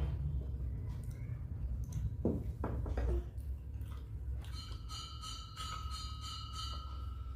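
Close-miked eating sounds, with a few short clinks and mouth noises about two to three seconds in. A faint steady high tone runs through the second half.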